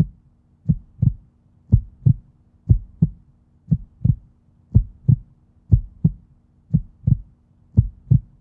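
Normal heartbeat, 'lub-dub': paired low thumps, the first heart sound (S1) followed closely by the second (S2, the aortic and pulmonary valves closing), repeating steadily at about one beat a second.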